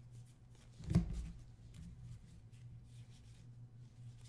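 Basketball trading cards being flipped and slid through by hand: soft rustling and light flicks of card stock, with one thump about a second in. A steady low hum runs underneath.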